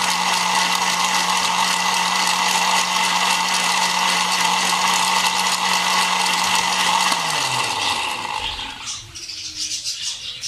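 Electric blender running steadily, blending pomegranate juice. About seven seconds in it is switched off and the motor winds down, its hum falling in pitch and fading away.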